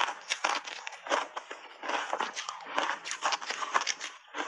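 Close-miked chewing of hard block ice coated in milk powder: a quick, irregular run of sharp crunches as the ice is bitten and ground between the teeth.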